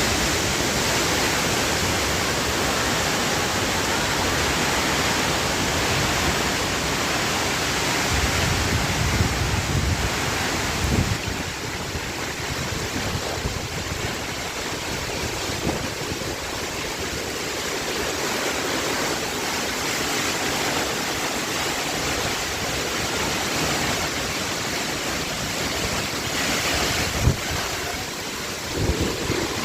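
Heavy rain pouring down in strong wind, a steady rushing hiss, with wind buffeting the microphone in low rumbles about eight to eleven seconds in. A brief thump near the end.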